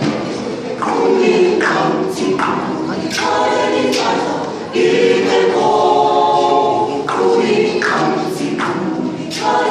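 A choir singing unaccompanied, many voices together in phrases of a few seconds, with short sharp accents about once a second in parts.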